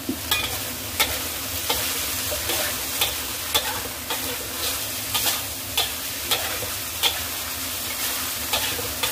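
Stir-fry sizzling in a hot pan, with a spatula scraping and knocking against the pan roughly every half second as the food is tossed.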